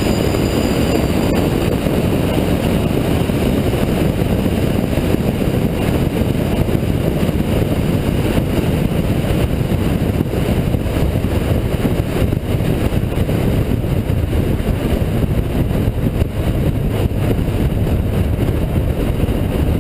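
Honda Integra DC2 at speed on an expressway, heard from inside the car: a steady mix of engine, road and wind noise with no clear revving.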